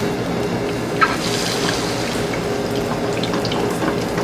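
Batter-coated swordfish medallion sizzling as it is laid into hot oil in a frying pan, with a sharp tick about a second in and a burst of sizzle that swells and then settles.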